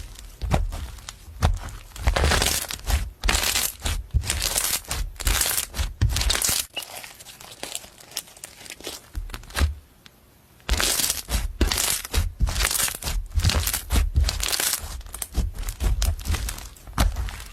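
Slime being pressed and squeezed by hand in short, irregular bursts of noise, with a near-quiet spell shortly after the middle.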